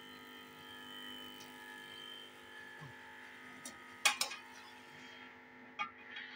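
Steady hum, with sharp metal clinks of a steel spoon against aluminium cooking pots: two close together about four seconds in and one more near the end.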